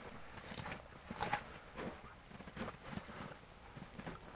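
Small tinder fire in the snow catching and crackling faintly, with irregular small pops.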